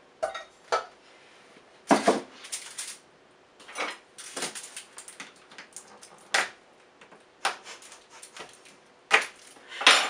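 A knife cutting a bar of baking chocolate on a cutting board: irregular sharp knocks and clicks, some in quick clusters, with rustling of the foil wrapper.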